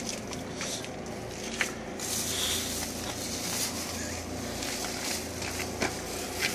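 Footsteps and the rustle of large bags of fibre stuffing being lifted and handled, over a steady low hum. The rustling grows louder about two seconds in.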